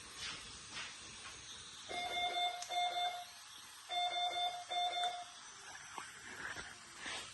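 Medical equipment alarm beeping: two pairs of steady, even-pitched beeps, each beep about half a second long, with the second pair starting about two seconds after the first.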